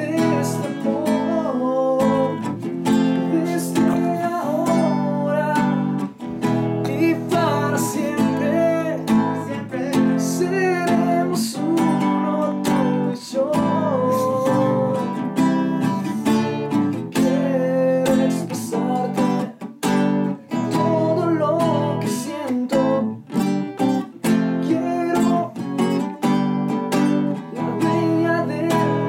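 A young man singing a love song while strumming a classical guitar.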